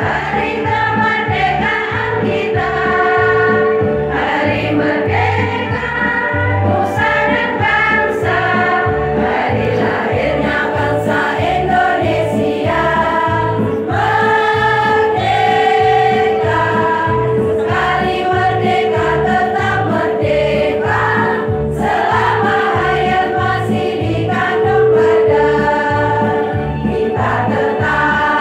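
Women's choir singing together, with a steady low beat of about two pulses a second and a held tone underneath.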